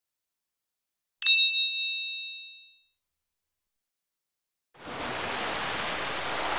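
A single bright chime sounds about a second in and rings out, fading over a second and a half. After a pause, a steady wash of sea water over rocks starts near the end.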